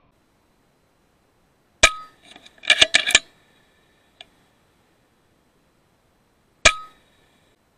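FX Impact M3 .22 PCP air rifle firing twice, each shot a sharp crack with a short ringing tail, about five seconds apart. Between the shots comes a quick run of sharp metallic clicks and clacks.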